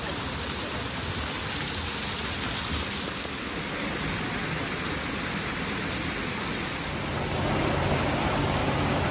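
Hot spring water cascading down rocks and pouring from a wooden chute into a pool: a steady rush of falling water that grows louder about seven seconds in.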